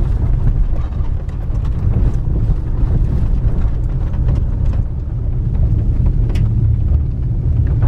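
Toyota RAV4 driving on a dirt road: a steady low rumble of tyres and engine, with scattered small clicks and rattles.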